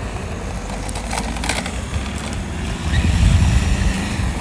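Hoverboard hub-motor wheels of an RC chassis rolling over rough asphalt: a low rumble with a faint steady whine, and a brief cluster of clicks a little over a second in.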